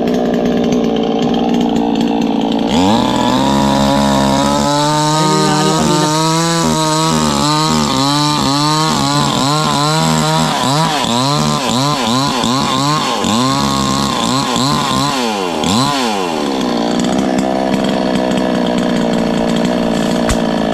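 Gasoline chainsaw idling, then throttled up about three seconds in and cutting wood, its engine pitch repeatedly dipping under load and climbing again. It drops back to idle about sixteen seconds in.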